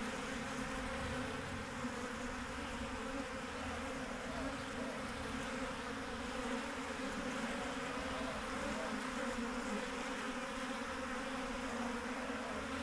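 A swarm of honey bees buzzing, a steady, dense hum of many wings with no let-up.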